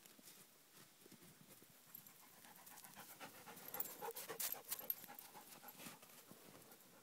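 A sled dog panting close by, with quick breaths that build up and are loudest a little past the middle, along with short crunches of steps on snow.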